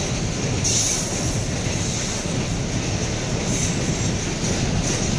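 Container flatcars of a long freight train rolling past close by: a steady rumble of steel wheels on the rails, with brief high squeals from the wheels a few times.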